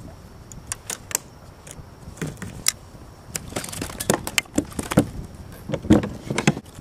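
Irregular clicks, taps and light rattles as a small porgy and its hook, line and tackle are handled by hand, getting busier and louder in the second half.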